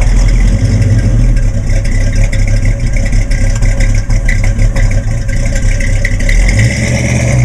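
Ford 351 Cleveland V8 of a 1971 Mustang idling through its dual exhaust, a loud, steady low rumble.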